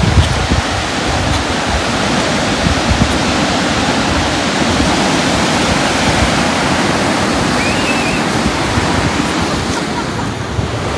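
Ocean surf breaking and washing over a rocky shoreline, a loud, steady rush of waves.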